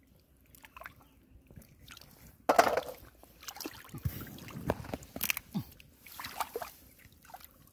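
Shallow muddy water sloshing and splashing as hands and a stick grope in it for mussels, in irregular bursts with the loudest splash about two and a half seconds in.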